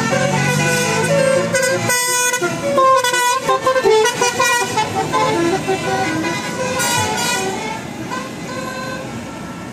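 Bus telolet horn playing a tune: several horn tones sound together and step from note to note. It grows quieter over the last couple of seconds.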